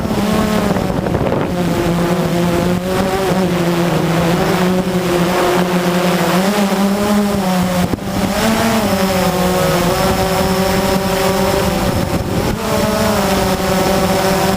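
Blade 350 QX quadcopter's four electric motors and propellers buzzing in flight. The pitch of the buzz shifts up and down as the throttle changes, dipping about eight seconds in and stepping down and then back up near the end.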